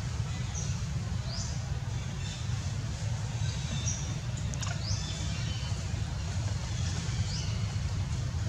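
Background ambience: a steady low rumble with short high chirps every second or so, and a single sharp click about four and a half seconds in.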